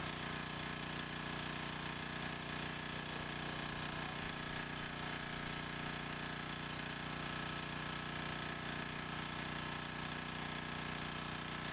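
Small combustion engine running steadily at one speed, with a fast low pulsing beat and no change in pitch.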